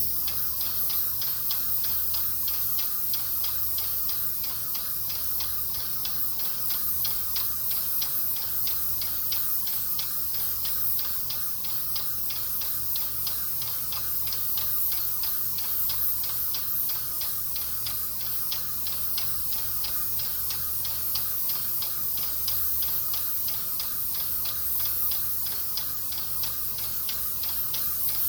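Graco 395 Hi-Boy airless paint sprayer running: the spray gun's steady high hiss of paint atomising, over the pump's rapid, even ticking and a low motor hum. It comes on suddenly as the trigger is pulled.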